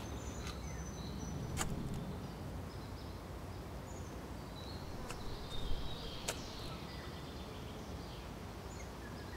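A shovel digging into dry garden soil, giving a few sharp scrapes or strikes: one about a second and a half in and two more a little past the middle. Birds chirp lightly over a steady low outdoor rumble.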